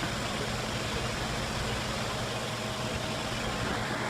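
Steady, unchanging machine noise, a motor-driven machine running continuously with a faint steady hum.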